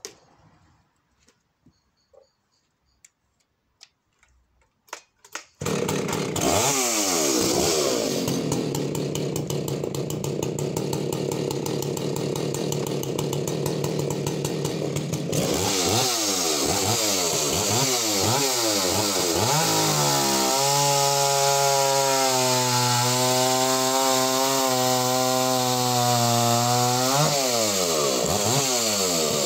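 A few faint clicks and knocks, then about five and a half seconds in a Husqvarna 285CD two-stroke chainsaw comes in loud at high revs, cutting a disc off a larch log. It is later revved up and down, and its pitch drops and holds steady under load in the cut before rising again near the end.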